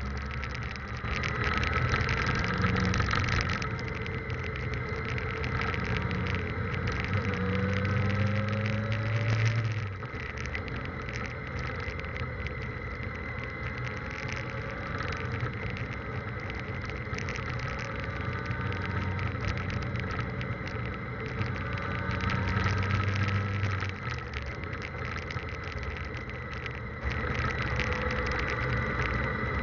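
Motorcycle engine running while riding, its pitch rising and falling with the throttle, with wind noise and crackle. The recording is a cheap camera's low-quality audio.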